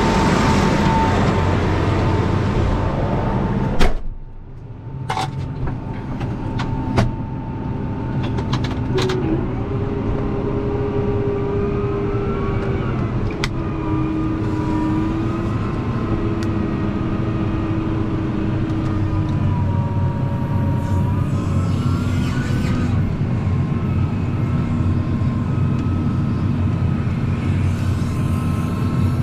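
Farm machinery engine running loudly. A sharp clunk comes about four seconds in, after which the sound is quieter, with a steady engine whose pitch rises and falls a few times and a few scattered clicks.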